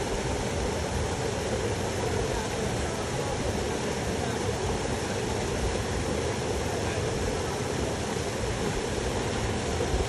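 Steady rushing of river water pouring over a small waterfall into a pool.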